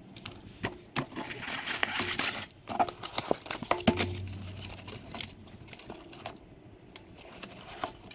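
Small cardboard product box and its paper and plastic packing being handled and opened: rustling and crinkling, then several sharp clicks and knocks, the loudest about four seconds in, followed by lighter handling noise.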